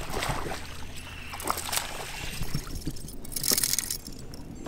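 Small bass splashing at the surface on a fishing line as it is reeled in and lifted from the water: several splashes and water sloshing, the loudest about three and a half seconds in.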